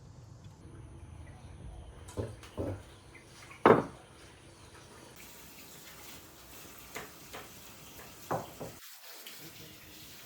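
Water running steadily, with a few short knocks, the loudest about four seconds in.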